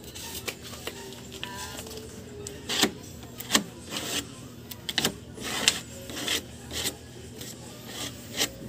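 Metal putty knife and spreader scraping body filler along the edge of a wooden table: a run of short, irregular scraping strokes, about one every half second.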